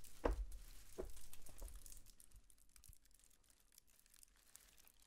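Faint foley rustling recorded in a small room: three soft, sudden rustles and light knocks in the first two seconds, then only faint room tone.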